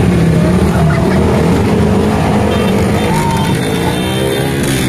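Small motorcycle and scooter engines running at low speed, with music playing over them.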